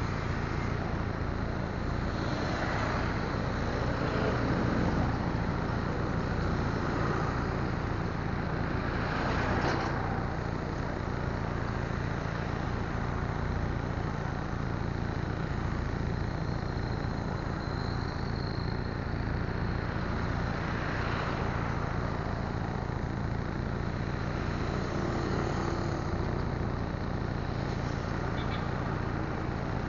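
Steady low rumble of idling engines and road traffic, swelling a few times as vehicles pass.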